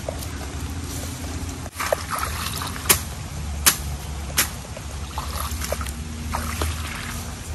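A machete chopping into wet ground, with three sharp strikes about three, three and a half and four and a half seconds in, and lighter chops between them, over a steady low rumble.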